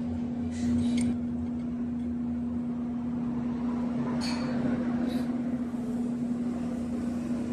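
A steady low hum with background noise, and a few faint brief sounds over it.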